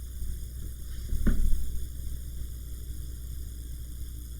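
Steady low hum and hiss, with one short knock about a second in.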